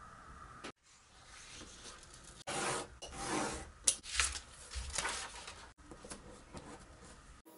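A sheet of printed paper rustling as hands slide and rub it across a cutting mat, in several rubbing strokes with a sharp crinkle about four seconds in. Quieter paper and tape handling follows near the end.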